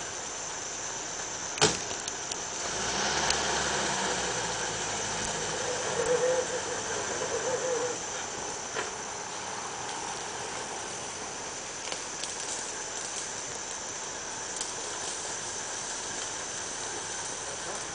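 Land Rover engine running slowly, swelling louder for a few seconds from about two seconds in as the truck creeps forward, then falling back. A steady high insect buzz runs underneath, with a sharp click near the start.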